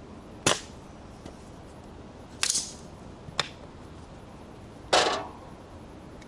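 Four sharp axe strikes chopping firewood into smaller pieces, unevenly spaced, the last one the loudest.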